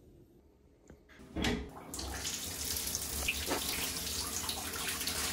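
Bath tap running into a bathtub, filling it with a steady rush of water that starts about one and a half seconds in.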